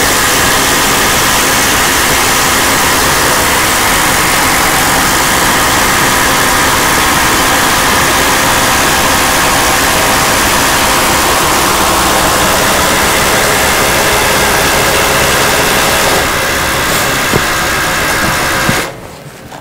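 Flex FX137A and Milwaukee 2853-20 cordless impact drivers hammering under load as they bore half-inch spade bits into wood: a dense, rapid impact rattle over the motor whine. It cuts out briefly just before the end, then picks up again.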